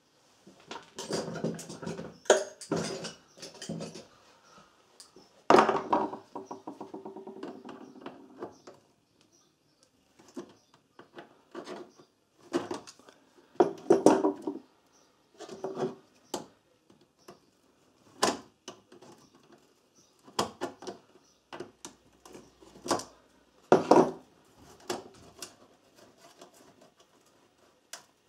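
Hand and tool handling at a welder's sheet-metal front panel while the nut on the control shaft is undone: scattered clicks, knocks and short scrapes of metal parts. One sharper knock about five seconds in rings on for about three seconds.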